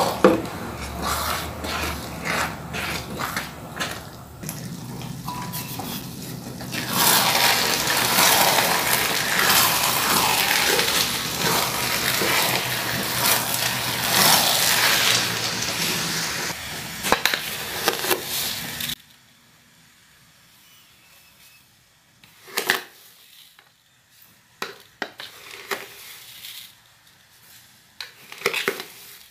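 Glutinous rice in coconut milk stirred by hand in a wok, with wet swishes and many small clicks. Then comes a loud steady hiss for about twelve seconds, which stops suddenly, followed by a few light taps.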